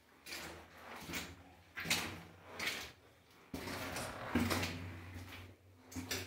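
Footsteps crunching and scuffing on the rocky, gritty floor of a mine tunnel, at a walking pace of about one step every three quarters of a second.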